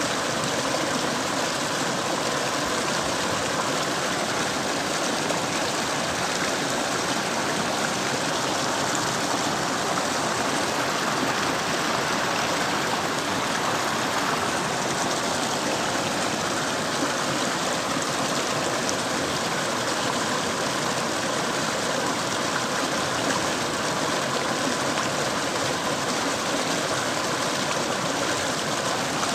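Mountain stream flowing, a steady, even rush of water.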